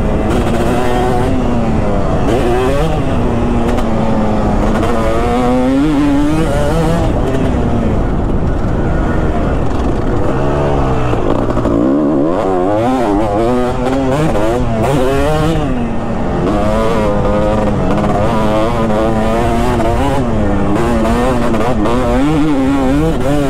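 Kawasaki KX250's 249 cc single-cylinder two-stroke engine under riding load, revved up and backed off over and over, its pitch climbing and dropping again and again.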